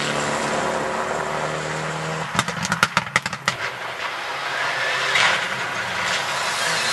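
Rally car engines at full throttle on a special stage. A steady engine note at first, then a quick run of sharp pops and cracks about two and a half seconds in, and a second car's engine rising in pitch as it accelerates towards the listener.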